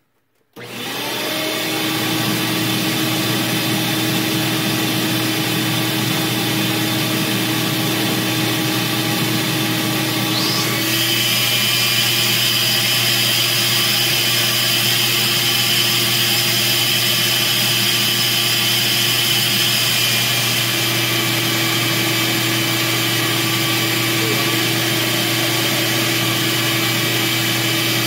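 Flow bench switching on about half a second in and running steadily, drawing air through a Chrysler 302-casting cylinder head's intake port during a flow test. It makes a loud, even rush of air with steady whining tones, which shift about eleven seconds in.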